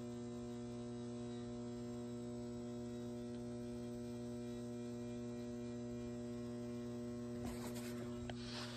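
Steady electrical mains hum, a low drone with several evenly spaced tones, with a short burst of noise near the end.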